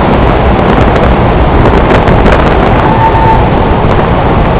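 Loud, steady road and wind noise from a vehicle driving through a road tunnel, with wind rumbling on the microphone. A faint whine from traffic sounds briefly about three seconds in.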